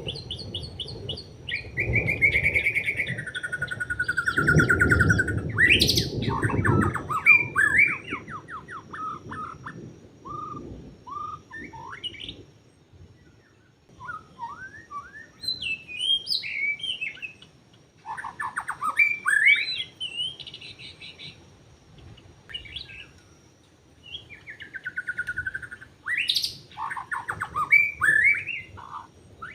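White-rumped shama singing: a varied run of whistled phrases, fast trills and rising and falling notes in bursts separated by short pauses. A low rumbling noise sits under the first several seconds.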